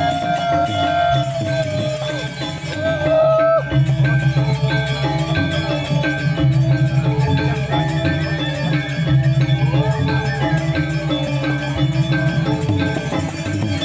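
Balinese gamelan ensemble playing, with metallophones ringing over a steady low pulsing beat. In the first few seconds a high melodic line slides up and down above them.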